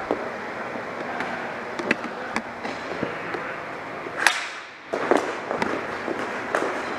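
Ball hockey play: sticks clacking and the ball and sticks knocking on the hard court surface in irregular sharp knocks over a steady din, with one louder crack about four seconds in.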